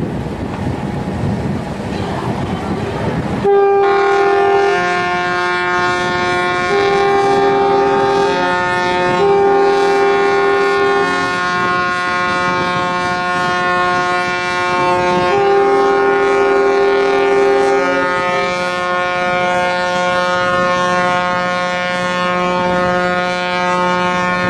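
Several ships' horns start up together about three and a half seconds in, after a few seconds of rushing noise. They form a chord of steady notes: some are held throughout, while others sound in repeated long blasts of one to two seconds. Horns like these greet a ship's launch.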